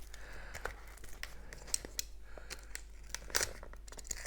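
A shipping package being opened by hand: packaging tearing and crinkling, with many short, sharp clicks and rustles.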